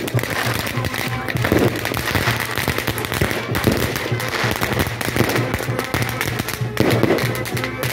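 Fireworks on a burning firework frame with spinning wheels, a dense, continuous crackling of rapid small pops, with music playing underneath.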